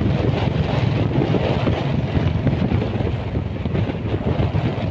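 Wind buffeting the microphone on a moving Royal Enfield Bullet motorcycle: a steady low rumble, with the single-cylinder engine running beneath it.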